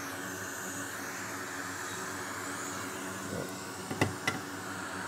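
Steady whooshing fan noise from electronics-repair bench equipment running, with two sharp clicks about four seconds in.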